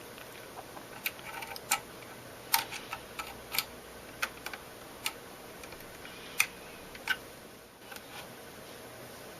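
Sharp, irregular clicks and taps of hard plastic parts of an LS-XHL NAS case being handled and worked apart, about a dozen over several seconds.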